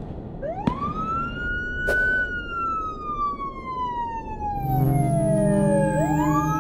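Electronic sci-fi sound effect: a synthesized tone sweeps up quickly, then slides slowly down in pitch for several seconds, with a couple of sharp clicks early on. About four and a half seconds in, sustained synth chords come in, and the tone swoops up again near the end.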